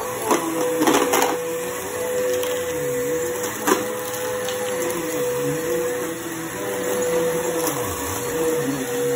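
Bissell bagless upright vacuum cleaner running on a plush rug: a steady motor whine with a lower hum that rises and falls as it is pushed back and forth. A few short knocks come in the first four seconds.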